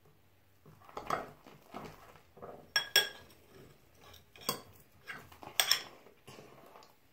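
A utensil stirring slime in a mixing bowl: irregular scraping strokes with several sharp, ringing clinks against the bowl, the loudest about three seconds in and again near six seconds.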